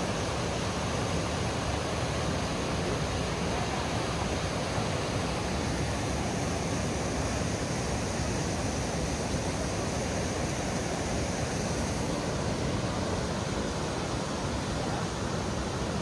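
Mountain stream rushing over and between boulders: a steady, even rush of water.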